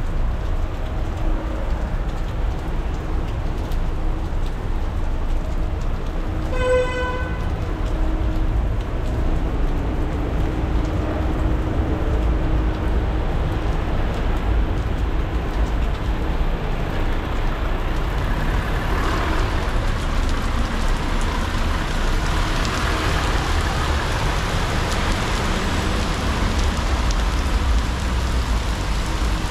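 City traffic on a wet street: a steady low engine rumble with the hiss of wet tyres and rain, which grows louder about eighteen seconds in. A short car horn toot sounds about seven seconds in.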